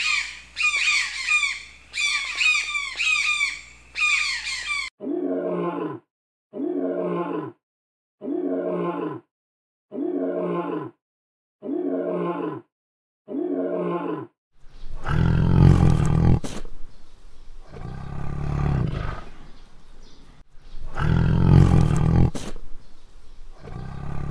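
A run of animal calls: harsh, rapid squawking calls for the first few seconds, then seven short pitched calls about a second and a half apart, then loud, deep, rough calls in several long bouts.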